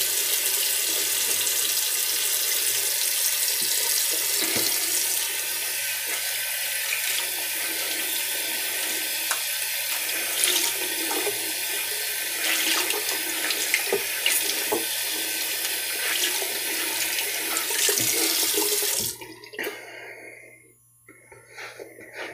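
Bathroom sink tap running steadily, then turned off near the end, after which only a few faint small sounds remain.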